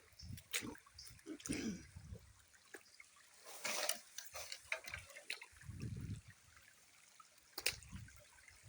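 Shallow stream water trickling and splashing in short, irregular bursts, with a louder splash about three and a half seconds in.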